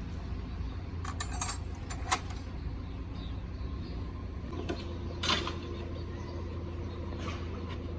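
Several short metallic clinks, as of tools or metal parts being handled, over a steady low hum: a cluster about one to two seconds in and a louder clink about five seconds in.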